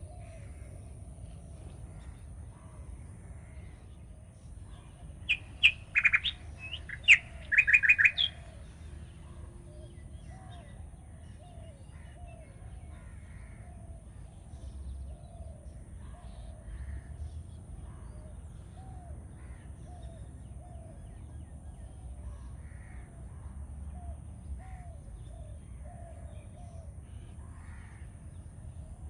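A bird calling: a quick series of about eight loud, short calls between five and eight seconds in, with fainter short calls repeating steadily throughout over a low background rumble.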